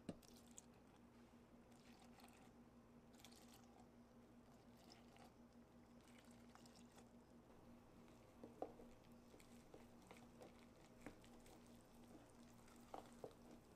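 Near silence with faint wet squishing and a few soft ticks: water poured into containers of flour and a spoon stirring the thick starter batter. A faint steady hum sits underneath.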